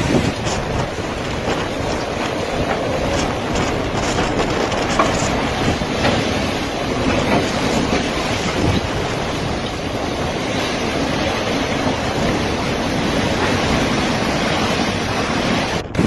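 Violent storm wind buffeting a phone's microphone: a loud, steady roar with no pitch, broken off for an instant near the end.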